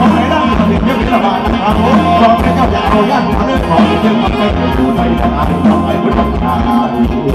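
Live Isan mor lam band music played loud through the stage PA, with a steady heavy bass and a regular drum beat.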